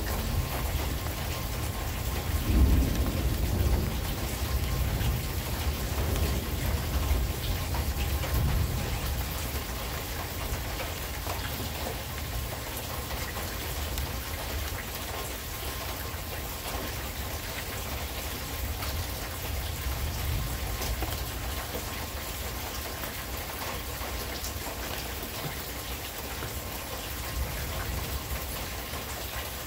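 Steady rain falling through a thunderstorm, with a long low rumble of thunder that swells about two seconds in and dies away over the following several seconds.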